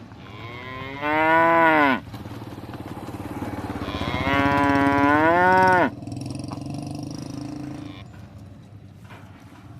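Buffalo mooing: two long calls a couple of seconds apart, the second longer, each dropping in pitch as it ends.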